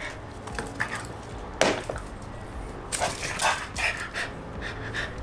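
French bulldog making a few short, sudden sounds: one loud one about one and a half seconds in, then several close together about three to four seconds in.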